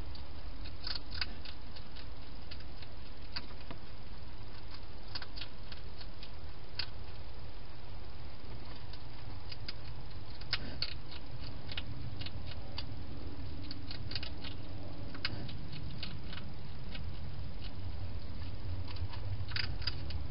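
Wild hedgehog eating from a bowl, chewing with irregular sharp crunching clicks, sometimes in quick clusters, over a steady low hum.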